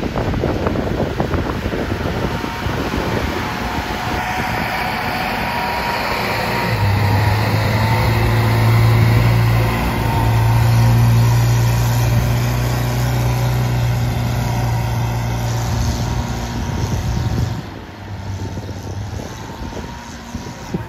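UAZ-469 off-roader's engine running hard at held high revs as it climbs through deep mud, a steady loud drone with the tyres churning the mud. The engine sound drops away near the end.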